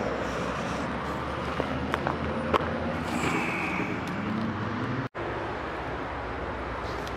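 Steady background hum of road traffic from the road bridges and highway by the river, with a few sharp clicks about two seconds in as fishing tackle is handled. The sound drops out for an instant about five seconds in.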